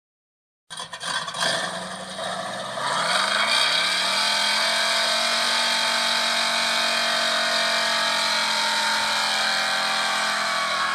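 An engine starting to run about a second in, its pitch climbing for a second or so as it revs up, then held at steady high revs until near the end.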